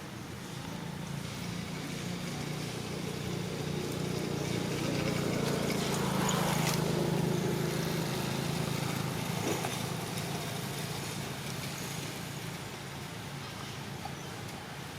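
A motor engine passing by: a low steady hum that grows louder over the first several seconds, peaks about halfway through, then fades away.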